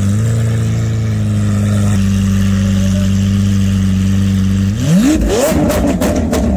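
Lamborghini Aventador SV's naturally aspirated V12 idling steadily, then one sharp blip of the throttle near the end, followed by a burst of exhaust crackles and pops as the revs fall.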